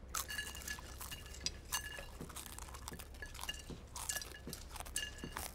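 Chocolate-covered pretzels being eaten fast straight off a plate. Scattered crunches and chewing come with small clinks of pretzels against the plate.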